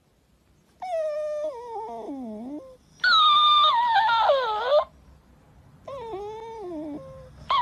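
Shiba Inu puppy whining: three drawn-out high whines, each holding its pitch and then sliding down, with a fourth starting at the end.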